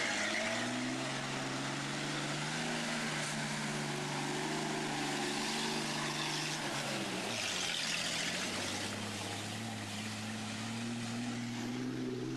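A Dodge off-road truck's engine running, its pitch dropping about seven seconds in and then holding steady and lower. A brief rushing hiss comes up around eight seconds in.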